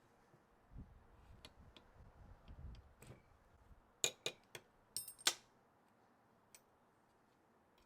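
Low rumbling handling noise, then a quick run of about six sharp clicks and clinks of hard parts being moved or set down, within about a second and a half.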